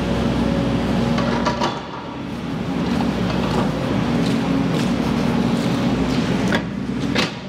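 Diesel engine of a Case excavator running steadily with a low drone, while it holds a peel grab just off the ground. A few sharp knocks come through, two of them near the end.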